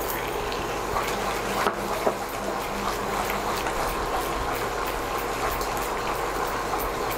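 A wooden spatula stirring thick, hot, ghee-rich halwa in a nonstick pan: a steady wet bubbling and sticky stirring noise with small ticks and a few sharper knocks of the spatula against the pan. The halwa is at its finishing stage, thick enough to come away from the pan.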